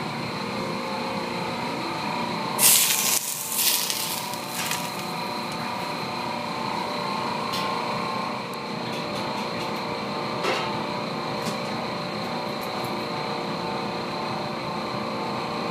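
Hot oil ladled over a steamed fish topped with ginger and scallion sizzles in two or three short, loud hisses a few seconds in. Under it runs the steady hum of the kitchen's ventilation.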